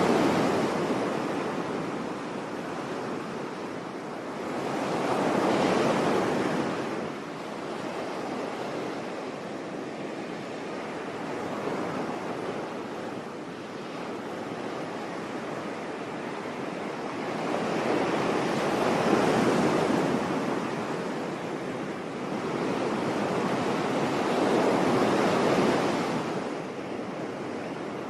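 Sea waves washing onto a shore, swelling and falling back in slow surges: four louder swells, with a calmer stretch of steady wash between the second and third.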